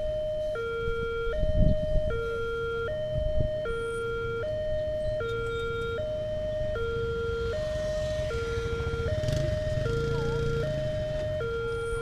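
Railway level-crossing warning siren sounding an electronic two-tone call, a higher and a lower note switching a little faster than once a second, the signal that the barrier is closing for an approaching train. A couple of low thumps come in the first few seconds, and a passing motor vehicle rises and fades about eight to ten seconds in.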